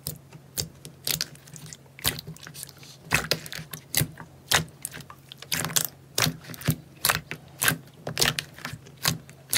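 Thick pink slime being poked and pressed by fingers in a plastic tub, giving irregular crackly pops and squelches several times a second as air pockets burst. A faint steady low hum runs underneath.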